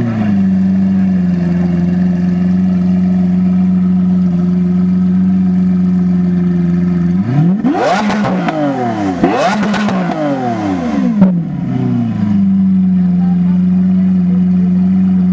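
2016 Lamborghini Aventador SV's V12 through an Antidote Motorsports exhaust, idling steadily. About seven seconds in it is blipped twice in quick succession, the revs shooting up and falling back each time, with a sharp pop as the second rev drops. It then settles back to a steady idle.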